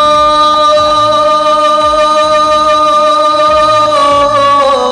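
A teenage boy singing a ghazal line through a microphone, drawing out one long sung note for about four seconds, then wavering and dipping in pitch near the end.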